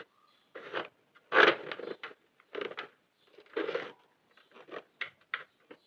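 Hands handling yarn and the plastic needle hooks of a Sentro 48 circular knitting machine: a series of short scrapes and clicks of plastic and yarn, each separated by a brief pause.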